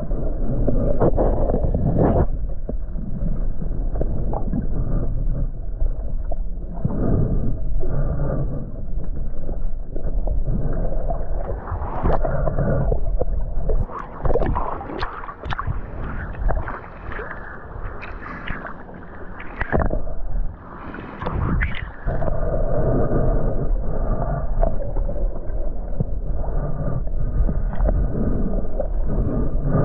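Muffled underwater sound from an action camera held below the sea surface: water gurgling and sloshing against the camera, dull and cut off at the top. In the middle it turns splashier as the camera comes up to the surface.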